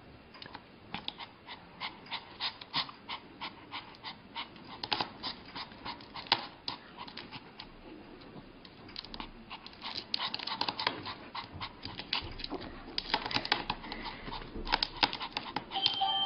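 A Pomeranian panting while its claws tap and scrape on a glass tabletop in a run of quick clicks, which come thicker in the second half.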